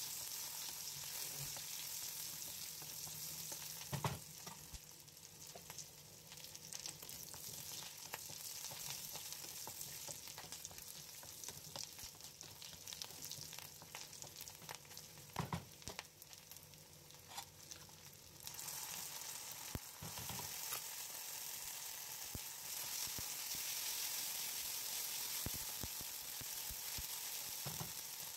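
Chopped onions and bay leaves sizzling in hot oil in a wok, the sizzle easing off in the middle and picking up again about two-thirds of the way through. A spatula scrapes and knocks against the pan a few times.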